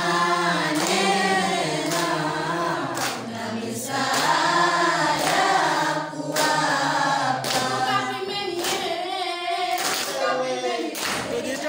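A group of men and women singing together without instruments, in phrases of held notes.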